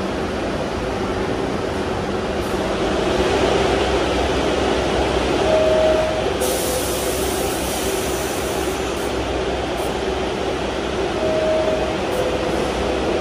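R62A subway train standing in the station with its doors open, idling with a steady hum. A two-tone door chime (a high note, then a lower one) sounds twice, and air hisses briefly about halfway through.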